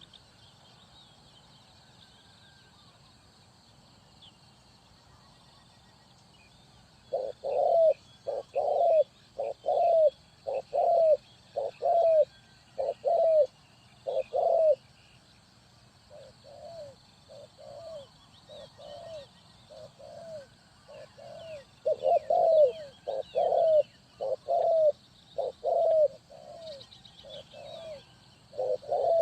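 Spotted dove cooing: runs of short, repeated coo notes start about seven seconds in, soften in the middle, then grow loud again. Faint high chirps of small birds sound behind it.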